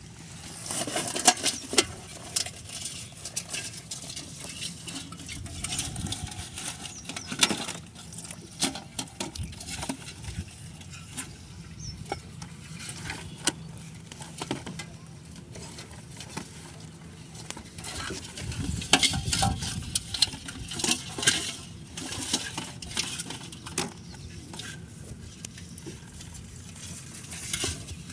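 Close handling noise of a plastic basin and a plastic crate with a cloth sack: irregular scraping, knocking, clicking and rustling as crabs are tipped and sorted. The loudest clusters come about a second in and again around twenty seconds.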